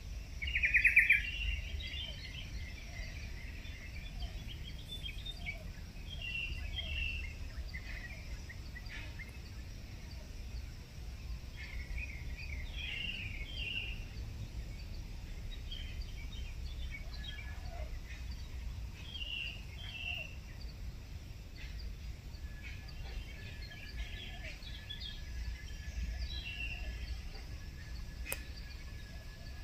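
Small birds chirping in short repeated phrases, the loudest call about a second in, over a low steady background rumble of outdoor noise.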